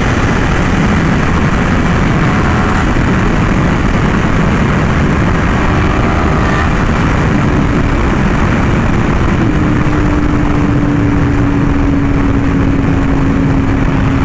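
Yamaha R1M crossplane inline-four with an SC Project exhaust, ridden at a steady high speed under heavy wind noise. The engine tone holds nearly level, stepping up slightly about two-thirds of the way through and then easing down slowly.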